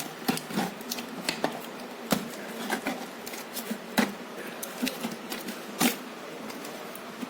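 Protein powder container and its packaging being handled: irregular sharp clicks and taps with some rustling, a few louder knocks about two, four and six seconds in.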